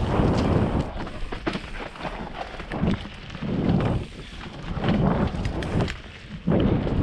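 Mountain bike riding down a dirt singletrack, heard from a helmet camera: wind rushing over the microphone in surges, with the tyres running over dirt and frequent sharp clicks and rattles from the bike. The noise dips briefly about six seconds in, then returns.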